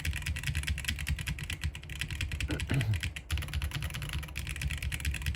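Fast, continuous typing on a mechanical keyboard with Holy Panda tactile switches and PBT keycaps, the key strokes clacking densely, with a brief pause about three seconds in.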